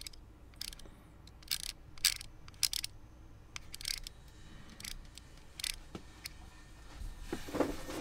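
Vesper Cortex VHF radio handset's buttons clicking as it steps through channels: a dozen or so irregular single clicks, about one every half second to a second. A short burst of hiss comes in near the end.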